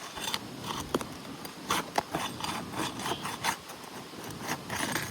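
Scraping and rasping as an asphalt roof shingle is pried up to break its seal, with a few sharp clicks. The shingle is tearing with each attempt to unseal it.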